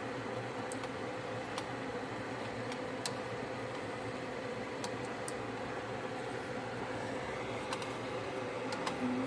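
Beef with bell peppers and onion browning in olive oil in a pan: a steady sizzle with scattered small pops, over a steady low hum.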